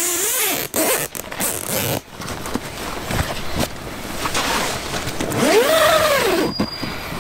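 Metal zipper on an old canvas tent door being zipped shut, drawn down the door seam toward the ground.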